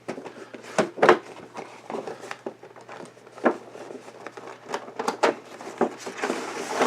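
Cardboard and plastic toy packaging being opened by hand: irregular clicks, taps and rustles of card flaps and plastic, with a longer scraping rustle near the end as the contents slide out.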